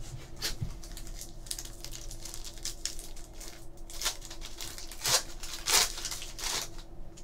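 Foil wrapper of a trading-card pack crinkling and tearing as it is ripped open by hand, with two louder crackles near the end.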